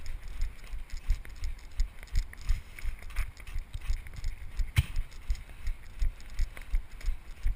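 A runner's footfalls on snow, heard through a GoPro carried by the runner: a steady rhythm of dull thumps, about three a second, with one sharp knock about five seconds in.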